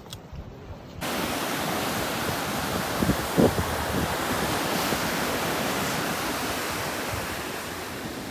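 Steady rushing noise of surf and wind, starting abruptly about a second in, with a few soft low thumps about three seconds in.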